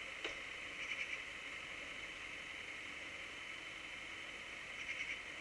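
Steady hiss of a dashcam recording from inside a car that is stopped in traffic. A single click comes just after the start, and two short bursts of rapid ticking come about four seconds apart.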